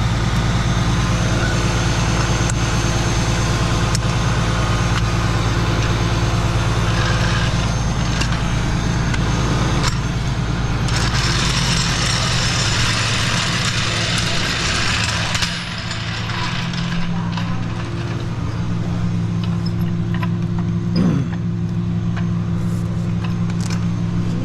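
A tow truck's engine running steadily with an even low hum. A hiss joins it for a few seconds around the middle, and there is a single knock near the end.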